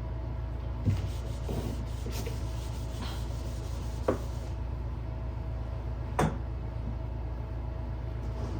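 Soft rubbing as a drawing surface is wiped, with three sharp clicks about one, four and six seconds in, the last the loudest, over a steady low electrical hum.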